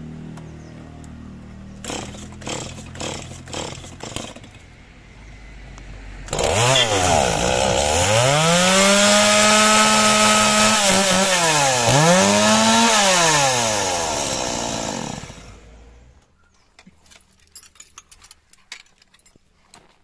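Stihl two-stroke chainsaw being pull-started: about five quick pulls, then it catches about six seconds in. It is revved up and down, held at high revs, then eased off and shut down.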